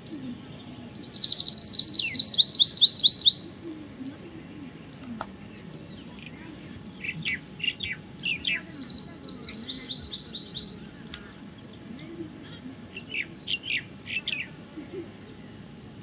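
White-throated kingfisher calling: a fast rattling run of shrill, downward-sliding notes about a second in, lasting a couple of seconds, then a second, fainter run later on. Short separate chirps come in between and near the end.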